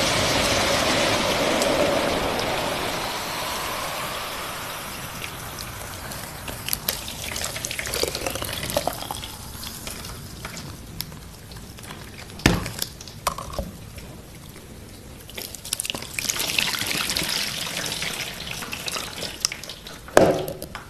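Water running and pouring, a loud rush that eases off over the first few seconds, then scattered drips and splashes with two sharp knocks, and a second shorter rush of water near the end.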